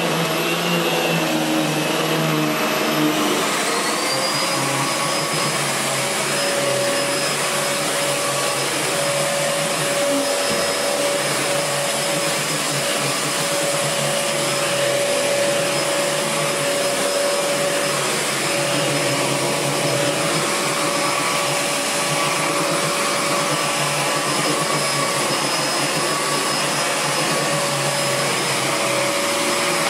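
Miele S7 upright vacuum cleaner running while being pushed over carpet; its motor speeds up about three seconds in, the whine rising in pitch, then runs steadily. The refurbished machine is running well, its exhaust quietened by a newly fitted aftermarket HEPA post-motor filter.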